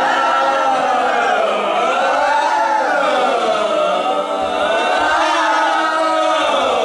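Several people's voices sounding together in a loud, unbroken, wordless wail, the pitches swooping up and down about once a second: deliberately annoying group vocal noise.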